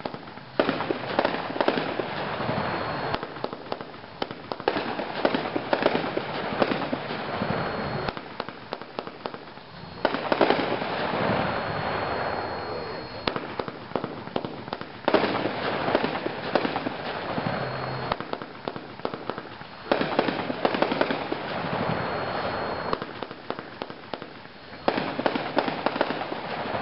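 Old Ironsides 30-shot consumer fireworks cake firing: repeated waves of dense crackling, each wave starting suddenly and dying down, a new one about every five seconds.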